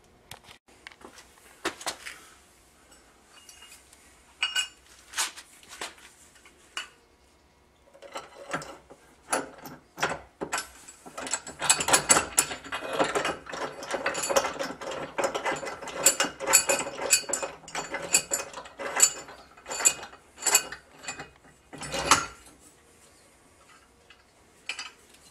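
Ratchet wrench clicking as bolts are tightened down on a trolling-motor mount bracket on a jack plate. A few separate clicks and knocks come first. Fast runs of ratcheting start about eight seconds in and stop shortly before the end.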